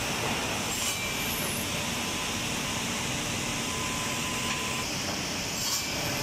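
Woodmaster automatic square-block drilling and cutting machine running steadily with a dense whir, with two brief sharper cutting sounds, about a second in and near the end.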